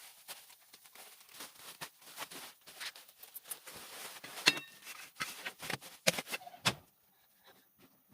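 Irregular rustling, scraping and knocking. About halfway through, one sharper clink rings briefly. The sounds stop abruptly near the end.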